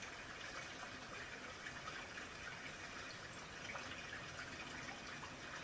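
Faint steady hiss of background room tone, with a few soft ticks.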